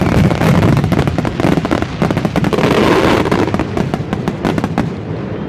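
Grand finale of aerial fireworks: a rapid barrage of shells bursting and crackling, the bangs thinning out and the level falling toward the end.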